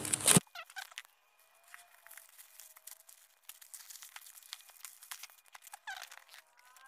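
Plastic parcel mailer being torn open by hand: a loud rip right at the start, then faint crinkling and rustling of the plastic as it is pulled off a cardboard box.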